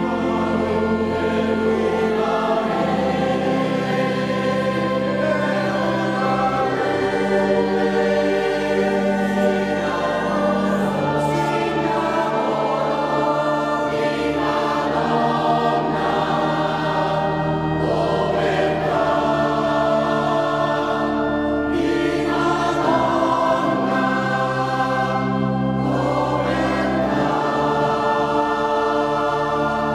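Mixed choir of men and women singing a sacred song, accompanied by an organ holding long bass notes that change every few seconds.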